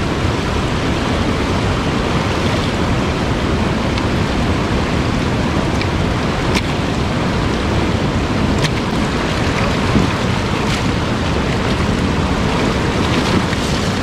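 Shallow, fast-flowing river water rushing and splashing around a motorcycle's wheels and the rider's legs, a steady loud rush with a couple of faint clicks; no engine is running.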